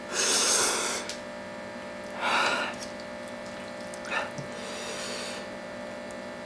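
A man blowing hard breaths out through his mouth, three breathy huffs about two seconds apart, as he tries to cool the burn of very spicy noodles. A light click of a fork against the bowl comes about four seconds in.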